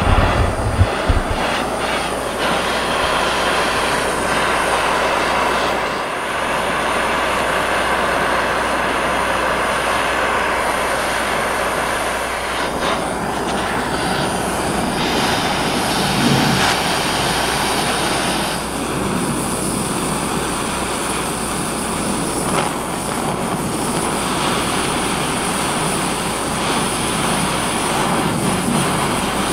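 Handheld gas torch burning with a steady rushing flame while it heats copper pipe and brass fittings for sweat soldering. A few low thumps come in the first second.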